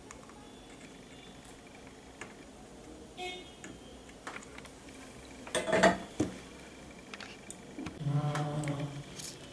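Soldering iron and metal tweezers being worked and handled at a motherboard: faint ticks and clicks, then a sharp metallic clatter about halfway through as the tools are moved or set down. A short low hum follows near the end.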